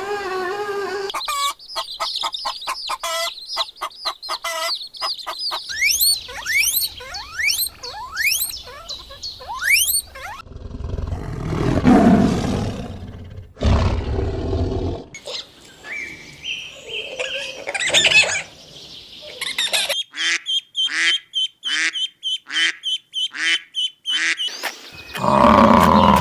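A run of different animal calls one after another: quick chirps and rising whistles, then a low rumbling call, then a fast, even trill.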